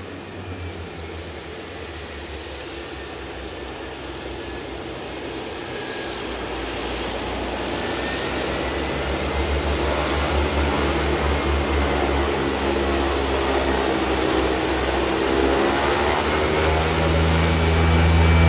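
A de Havilland Canada DHC-6 Twin Otter's twin PT6A turboprop engines running, growing steadily louder, with a high turbine whine that dips and rises in pitch.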